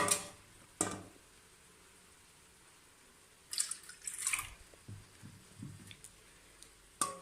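Milk being poured into a pot, splashing for about a second partway through, with sharp knocks of kitchenware near the start and again near the end.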